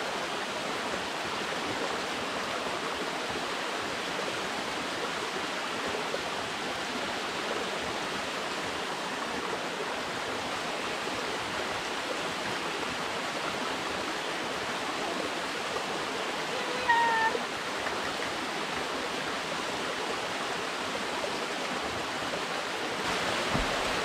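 Small woodland waterfall splashing steadily into a shallow stream pool. About two-thirds of the way through, a dog gives a brief whine.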